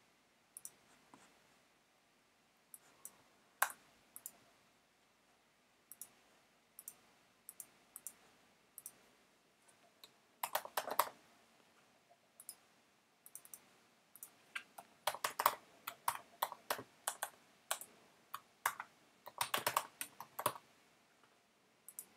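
Typing on a computer keyboard in a few quick bursts, with scattered single clicks between them.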